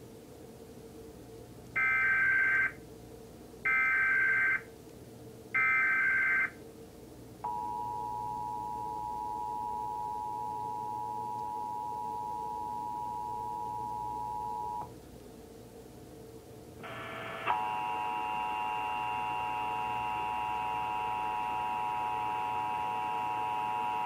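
Emergency Alert System broadcast tones: three short bursts of SAME digital header data about two seconds apart, then the two-tone EAS attention signal held steady for about seven seconds. After a short gap, a second, louder steady alert tone with several pitches starts about 17 seconds in and carries on.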